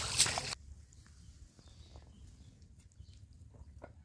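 Footsteps splashing through shallow water in long grass, cut off abruptly about half a second in. Then a quiet outdoor background with a few faint ticks and taps.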